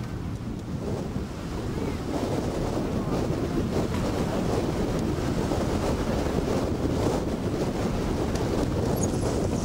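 Wind buffeting the microphone in a steady low rumble.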